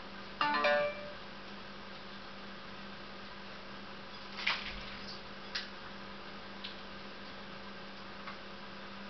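Caged finches in an indoor aviary: one short pitched call about half a second in, then four sharp ticks about a second apart, over a steady electrical hum.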